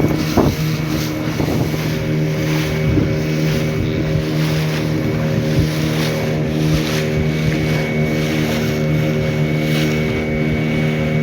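Motorboat engine running steadily at a constant speed, with wind and water noise splashing along the hull.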